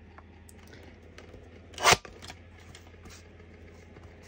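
Crafting materials handled on a table: a few faint light taps, and about two seconds in one brief, loud rustle, over a low steady hum.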